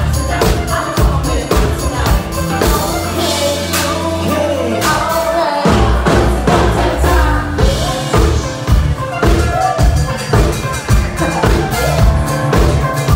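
Live rock band playing loud, with drum kit and a singer. A few seconds in, the beat stops under a long held low note and cymbal wash, then the drums come back in with the beat.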